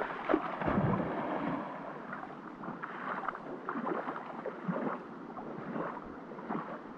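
River water splashing and sloshing in a swimming hole, with irregular splashes busiest in the first second or two, then settling into a steady wash of moving water.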